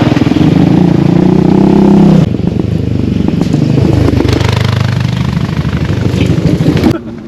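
Yamaha Raptor 700 ATV's single-cylinder four-stroke engine running hard at high revs. The sound drops suddenly about two seconds in, then the engine revs up and down again before the sound falls away sharply near the end.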